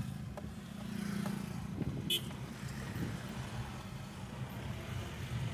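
Car engine and road noise heard from inside the cabin: a steady low drone with a few light knocks, and a brief high-pitched sound about two seconds in.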